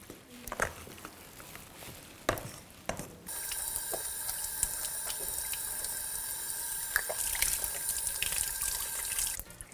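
A few faint clinks of a spoon against a plastic tub as potato salad is mixed. Then a steady rushing of water from a running kitchen tap starts suddenly about three seconds in and stops suddenly near the end.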